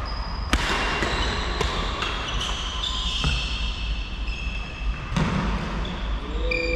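Badminton rally in a large hall: several sharp cracks of rackets striking the shuttlecock, with short high squeaks of court shoes on the wooden floor, all echoing in the hall.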